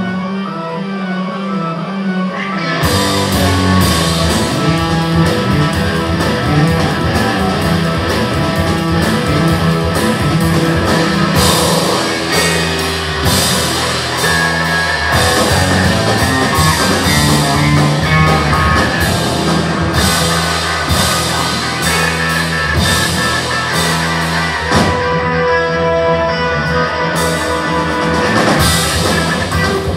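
Live instrumental rock band playing: electric guitar and bass guitar over a full drum kit. The guitar opens alone, and the drums and bass come in about three seconds in.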